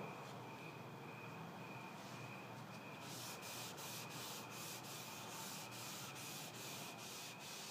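A gloved hand rubbing liquid wood dye into a bare wooden board with an applicator, in quick back-and-forth strokes. The scrubbing starts about three seconds in at about three strokes a second, faint against a steady thin background whine.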